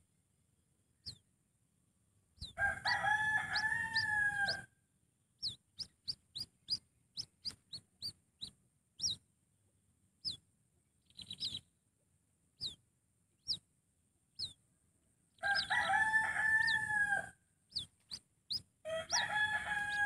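Birds calling: three loud drawn-out calls of about two seconds each, one a few seconds in and two near the end, with many short, high chirps falling in pitch scattered between them.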